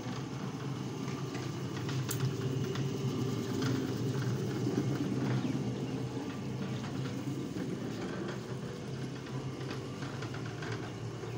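Electric marble floor polishing machine running steadily, its motor humming as the rotating head works the final polish into a marble floor, with faint scattered ticks.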